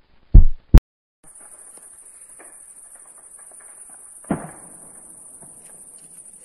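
Two heavy thumps and a sharp click in the first second. Then a steady high hiss with faint crackling from a burning ammunition depot, and one louder distant explosion about four seconds in.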